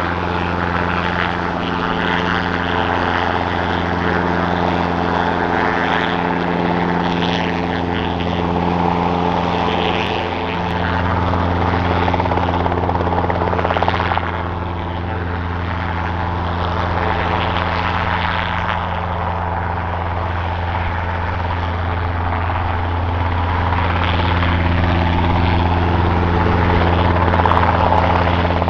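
Robinson R22 Beta II helicopter hovering low: its four-cylinder Lycoming piston engine and two-blade rotor run steadily with a deep, even drone, growing a little louder near the end.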